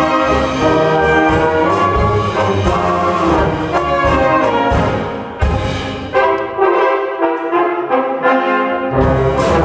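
German brass band playing a polka live, with trumpets, trombones, horns, tubas and drums. Past the middle the tubas and drums drop out for a few seconds, leaving short, punchy chords from the higher brass, and the full band comes back in near the end.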